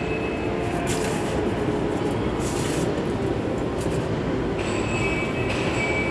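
A steady mechanical rumble with a few brief hissing bursts.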